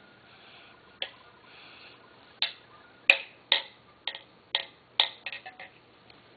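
Irregular sharp clicks, about ten spread over several seconds, coming closer together about five seconds in; the loudest is about three seconds in.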